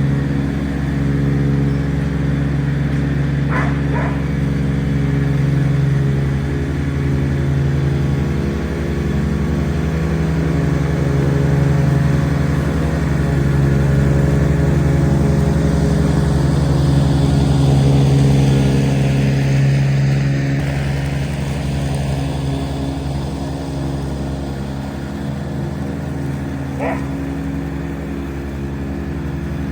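Kubota G231 ride-on mower's engine running steadily at just over 3,000 rpm while it cuts and collects wet long grass. Brief sharp sounds come through about four seconds in and again near the end.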